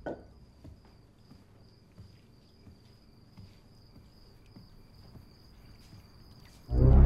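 Crickets chirping steadily with faint footsteps, after a single knock at the start. Near the end a loud, low horror-score music stinger cuts in suddenly.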